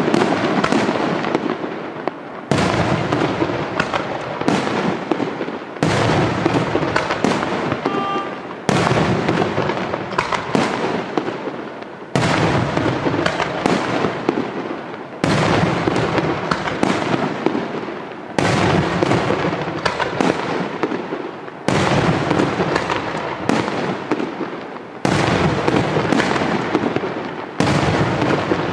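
Aerial firework shells bursting one after another, a sudden loud report about every three seconds, each followed by a dense crackling wash that dies away before the next.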